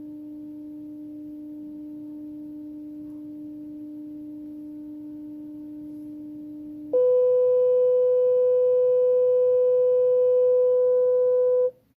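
Steady test tone from the phyphox phone tone-generator app. A lower tone holds until about seven seconds in, then jumps to a higher, louder tone that cuts off suddenly shortly before the end.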